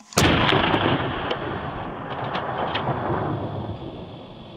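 A single rifle shot: a sharp crack, then a long rolling echo off the valley slopes that fades away over about four seconds.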